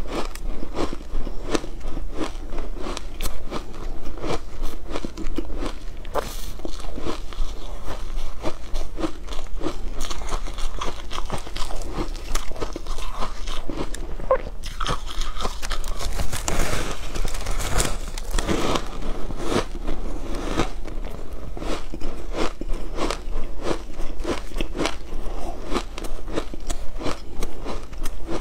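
Biting and chewing of frozen shaved ice coated in matcha powder: a steady run of crisp crunches, denser and louder for a few seconds around the middle.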